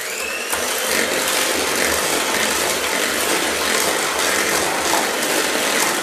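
Electric hand mixer running steadily at speed, its beaters creaming soft butter with sugar and vanilla sugar in a bowl until slightly fluffy.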